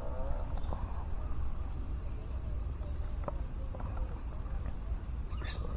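Insects chirping in a steady, evenly pulsing high trill over a low rumble, with a few short clicks and a brief higher sound near the end.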